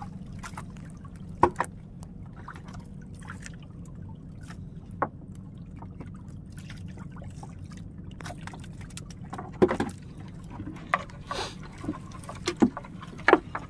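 Water dripping and trickling off a wet fishing net as it is hauled in over the side of a small outrigger boat and fish are picked from it by hand. Scattered sharp knocks and taps come from the net and hands against the hull, over a steady low hum.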